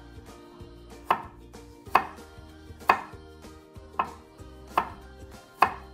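Chef's knife chopping through vegetables onto a wooden cutting board: six separate strokes, about one a second.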